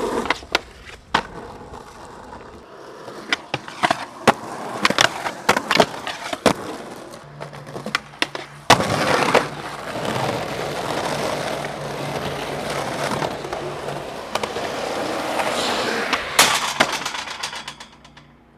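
Skateboard on concrete: sharp clacks of the board popping and landing come again and again through the first half. Then comes a long steady roll of the wheels, which ends in a last cluster of clacks near the end.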